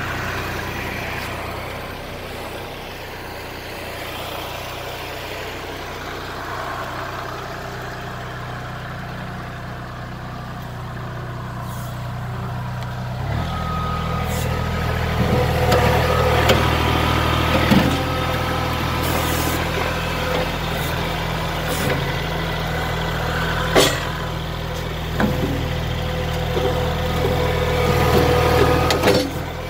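Kubota L3901 compact tractor's three-cylinder diesel engine running, then revving up and labouring under load about halfway through as it pushes against a small tree that won't go over. A steady whine and several sharp knocks come in with the load.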